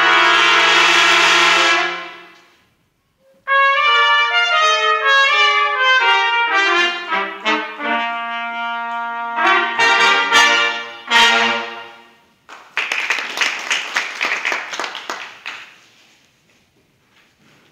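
Brass sextet of five trumpets and a trombone: a loud held chord ends, and after a brief pause the ensemble plays a passage of moving notes over held ones, closing on a short final chord about twelve seconds in. Audience applause follows and dies away.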